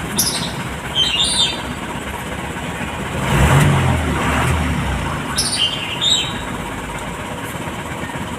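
Birds chirping in short high calls near the start and again about five seconds in, over steady outdoor background noise. About three seconds in, a louder rushing sound with a low hum swells and fades over about two seconds.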